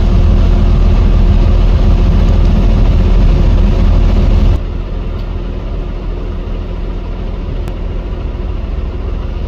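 Heavy diesel engines running steadily, a loud low rumble with a constant hum over it. About four and a half seconds in it drops suddenly to a quieter rumble.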